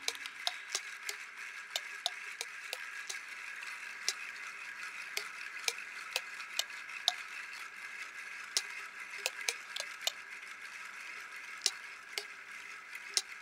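A steady hiss scattered with irregular sharp clicks and crackles, a few a second, over a faint low steady tone, easing slightly toward the end.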